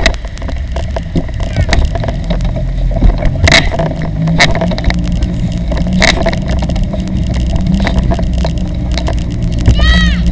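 Child bike trailer rolling along a paved street: a steady low rumble of wheels and wind, broken by sharp rattles and knocks as the frame jolts over bumps. Near the end a child's voice calls out, rising and then falling in pitch.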